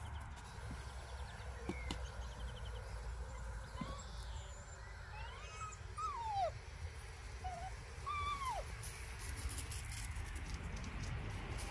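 Seven-week-old puppies whimpering while they play: a handful of short, high whines that slide down in pitch, clustered around the middle of the stretch.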